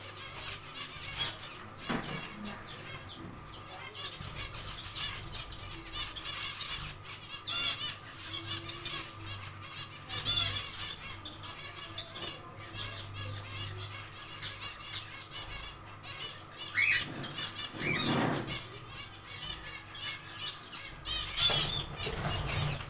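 Zebra finches calling with many short, high chirps while birds flutter their wings around the cage, with louder bursts of wingbeats about 18 seconds in and again near the end.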